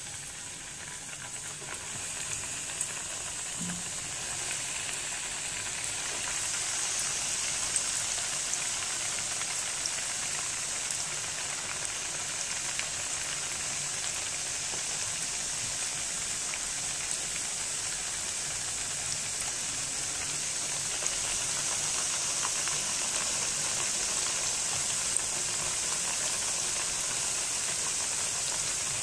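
Chakli dough spirals deep-frying in hot oil: a steady sizzle with fine crackling that grows louder about six seconds in as more pieces go into the oil.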